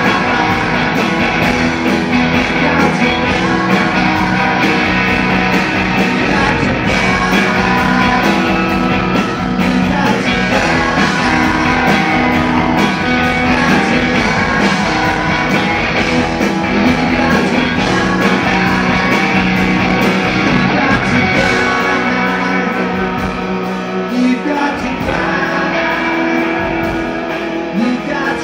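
Live rock band playing loud: two electric guitars over drums, with a sung lead vocal.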